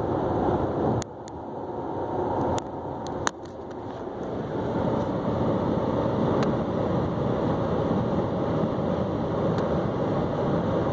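Steady road and wind noise inside a car's cabin at high speed, with a few faint clicks. The noise drops abruptly about a second in and again about three seconds in, then builds back up.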